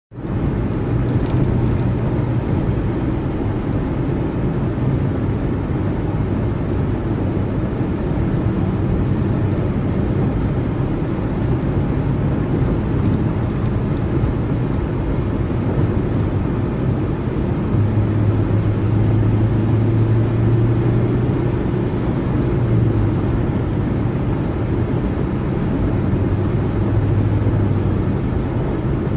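Steady road and engine noise of a car cruising on a freeway: a continuous low rumble. A deeper hum swells for a few seconds about two-thirds of the way in and again near the end.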